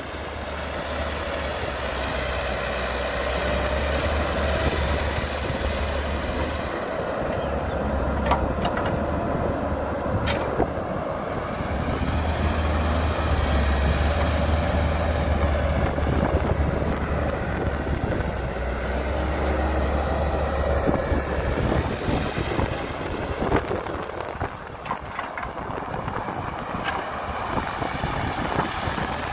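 Diesel engine of a CAT hydraulic excavator working as it digs and swings, a deep steady drone that eases off about two-thirds of the way in, with a couple of short knocks along the way.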